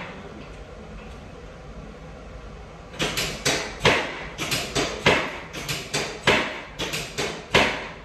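A rapid run of about fourteen sharp knocks, roughly three a second, starting about three seconds in, from a chiropractic adjustment of the hip.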